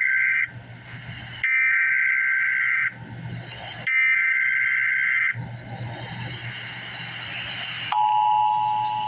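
Emergency Alert System SAME header data bursts: the end of one burst, then two more full bursts of harsh two-tone digital screeching, each about a second and a half long with a short gap between. About eight seconds in, the steady two-tone EAS attention signal starts, announcing the coming alert message.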